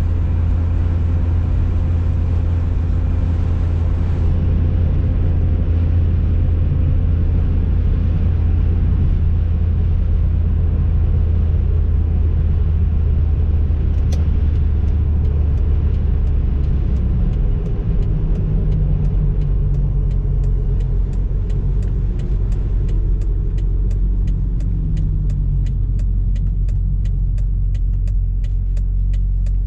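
Cabin sound of a 1990 BMW E30 M3's four-cylinder engine cruising steadily, its revs falling about two-thirds of the way through as the car slows. A regular ticking, about two to three a second, sets in near the end.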